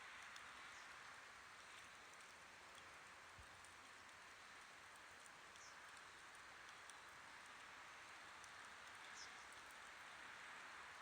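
Campfire burning faintly: a steady soft hiss with a few small, scattered crackles.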